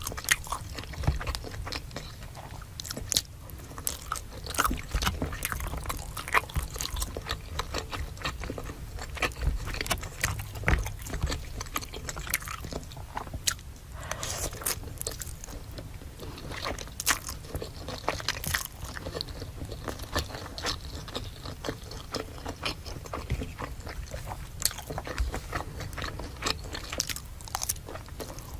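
Close-miked biting and chewing of crispy fried food, with irregular wet crunches and smacks throughout.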